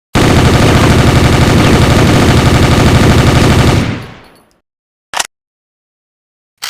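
FN P90 submachine gun firing one long full-auto burst of rapid shots for nearly four seconds, then a fading echo. Two short, sharp clacks follow, about a second and a half apart.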